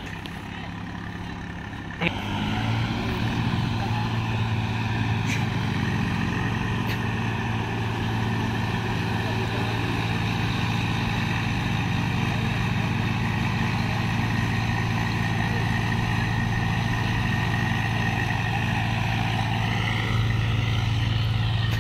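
Swaraj tractor diesel engines running steadily at an even pitch, after a sharp click about two seconds in, and a little louder near the end.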